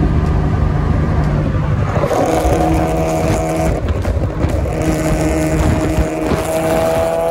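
Car engine and road noise at highway cruising speed. A steady engine note comes in strongly about two seconds in, drops away briefly, then returns and rises slightly in pitch near the end.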